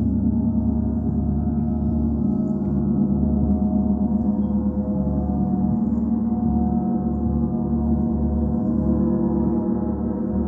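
Several large planetary gongs played continuously, a dense sustained wash of overlapping ringing tones with no single strike standing out. From about halfway through, a slow pulsing comes up in the bass.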